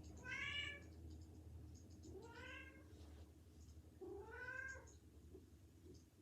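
Domestic cat meowing three times, about two seconds apart, each call rising then falling in pitch.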